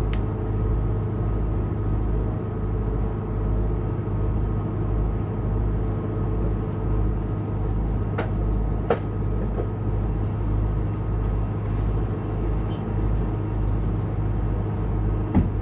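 Tour boat's engine running steadily underway, heard on board: a low hum with a slow, regular throb. A couple of sharp clicks about halfway through and another just before the end.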